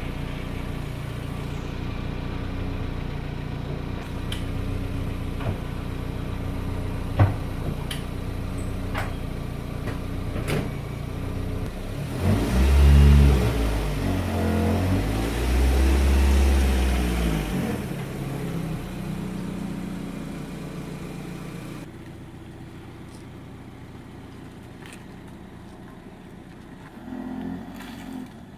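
Car engine, most likely the Proton Persona's, running steadily with a few light clicks. About twelve seconds in its note swells loudly, rising and falling for several seconds, then settles back to a quieter hum.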